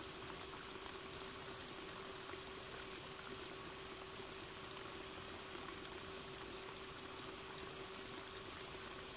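Steady hiss of background noise with a faint steady hum, and no distinct splashes or other events.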